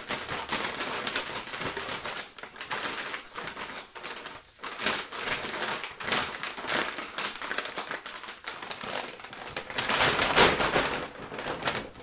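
Stiff, hard paper being handled and crinkled: a continuous run of rustling and crackling, with a louder burst near the end.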